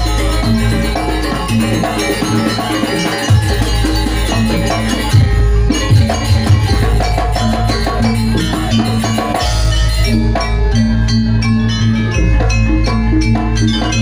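Janger gamelan ensemble playing a dance accompaniment: struck metal keys and drums in a dense, steady rhythm, loud and continuous.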